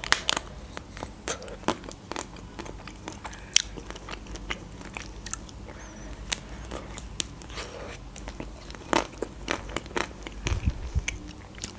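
Bites into a white-chocolate-coated ice cream bar, recorded close for ASMR. The thin chocolate shell cracks in scattered sharp clicks and crackles, along with chewing and mouth sounds.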